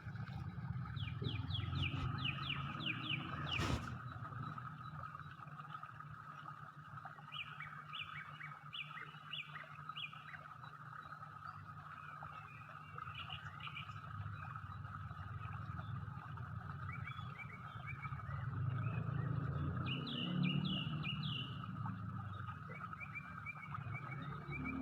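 Birds chirping in short quick series, several times, over a steady hum and a low rumble, with one sharp click about four seconds in.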